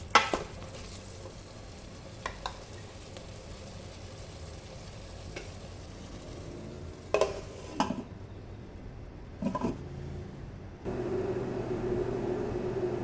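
Food sizzling as it fries in a pan, with a few sharp clinks and knocks of a utensil stirring against the pan. About eleven seconds in, a steady motor hum with a low tone starts suddenly.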